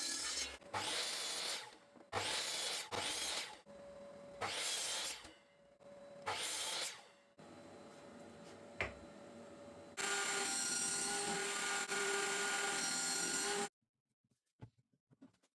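Power tools working pallet wood. About a second at a time they start and stop for the first seven seconds, then one runs steadily with a held whine for about three and a half seconds and cuts off abruptly near the end.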